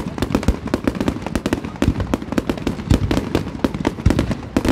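Fireworks display going off: aerial shells bursting with a dense, irregular volley of sharp bangs and crackles, many a second.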